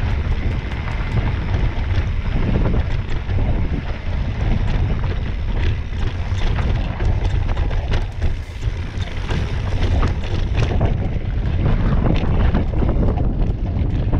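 Wind buffeting an action camera's microphone while a mountain bike rides a rocky dirt trail, with frequent short clicks and knocks from the tyres and bike rattling over stones.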